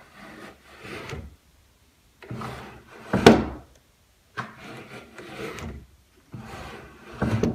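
Plywood trunnions of a homemade wooden bandsaw sliding against each other as the table is tilted back and forth: several strokes of wood rubbing on wood, with a sharper wooden knock about three seconds in.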